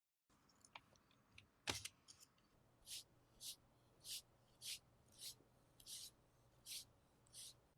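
A quiet, sharp click, then a steady run of nine short, crisp scraping strokes, a little under two a second, from a kitchen utensil working on food.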